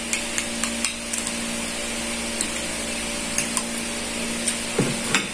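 Scattered light clicks and taps of a spoon and chopsticks against a plate and bowls as two people eat, over a steady low hum and hiss. A brief pitched sound comes near the end, with the sharpest click just after it.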